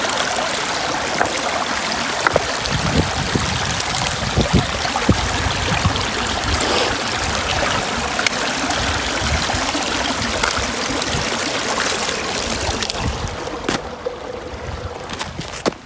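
Shallow, rocky mountain stream running and trickling over stones, with a few low thuds of boots stepping on the rocks. The water sound fades away near the end as the walker steps off onto snow.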